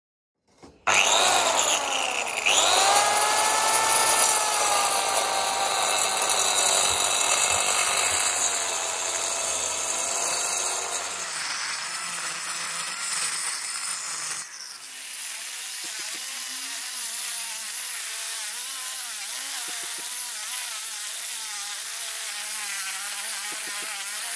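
Angle grinder driving an 82 mm diamond core bit, boring a hole for an electrical box into old unreinforced concrete with hard stone aggregate (porphyry, basalt, quartz). It starts about a second in with a loud whine and grinding, and about halfway through drops to a quieter, lower grind.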